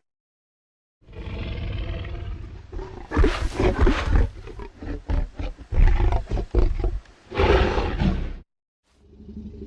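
Loud animal-like roaring and growling in several edited clips, each starting and stopping abruptly, with sudden cuts to silence at the start and about a second before the end.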